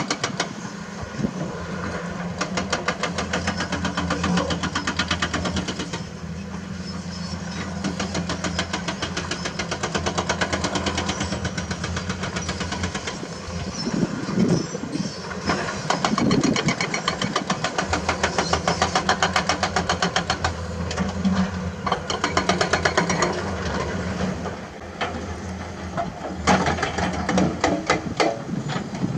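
Diesel excavator engine running under load while digging, with a fast, regular pulsing throughout and louder surges now and then.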